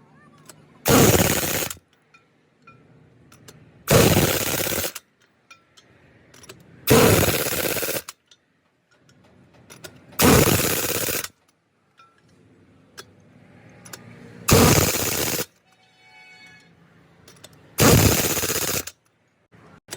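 Impact wrench hammering on truck wheel nuts in six bursts of about a second each, roughly every three seconds, as the nuts on a rear wheel are run on or off one by one.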